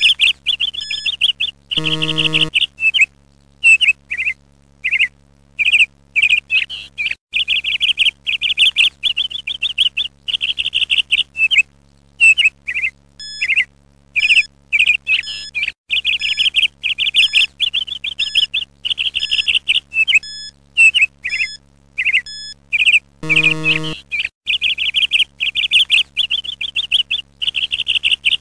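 Birds chirping and twittering without pause as a backing track. A short, low buzzer tone sounds twice, about two seconds in and again about five seconds before the end, marking the quiz countdown running out.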